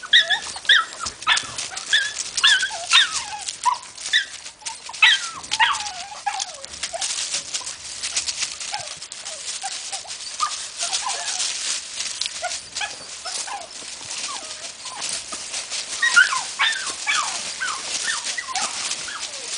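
Lagotto truffle dog whining in short, falling whimpers while it scratches and digs through dry leaf litter. The whines come in clusters, over the first few seconds and again near the end, over a steady crackle of leaves.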